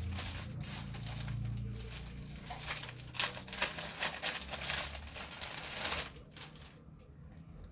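Clear plastic garment packets crinkling and rustling as a packed kurti is handled and pulled out to be shown. The crinkling stops about six seconds in.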